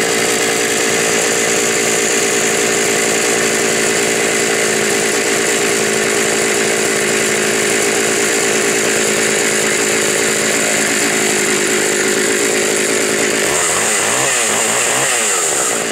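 Vintage Pioneer P42 two-stroke chainsaw running at high revs, steady and loud; about two seconds before the end the revs drop and waver as the throttle comes off.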